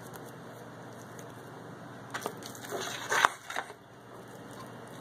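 Hands handling raw pork steaks, laying them over the food in a cast iron Dutch oven and reaching for more. A short cluster of rustles and knocks comes about two seconds in, the loudest just past the middle, over a steady low hiss.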